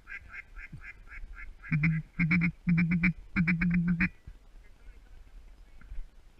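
Duck quacking in rapid series: a soft, high run of quacks about five a second, then four loud, close bursts of fast quacking from just under two seconds in until about four seconds in.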